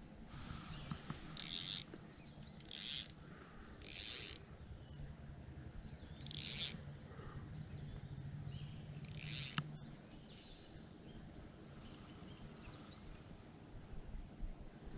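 Spinning reel's drag buzzing as line is pulled off the spool in five short pulls, each a brief rasping zip.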